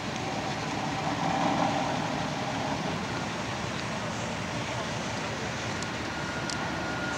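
Diesel trial-truck engine running, swelling louder about a second in as it is revved, over steady outdoor noise.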